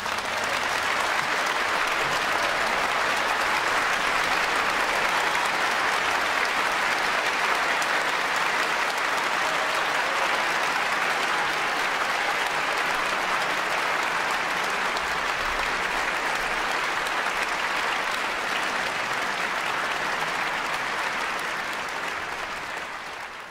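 Audience applauding steadily after an orchestral performance, fading out near the end.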